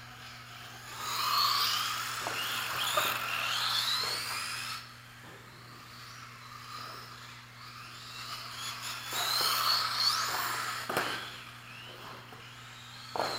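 Radio-controlled rally cars racing past, their motors whining with the pitch sweeping up and down as they accelerate and slow, in two passes: from about a second in to nearly five seconds, and again from about eight and a half to eleven seconds. A few sharp knocks come in between, the loudest near the end.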